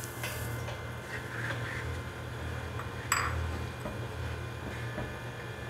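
Sugar poured from a small bowl into milk simmering in a wok, then a spoon stirring and scraping through the thickening milk against the pan, with one sharp clink of the spoon on the pan about three seconds in. A low steady hum runs underneath.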